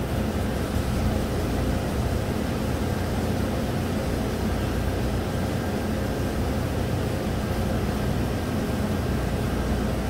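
A 1997 GM pickup's Vortec 5.7 V8 idling steadily just after being started, still cold and running in open loop.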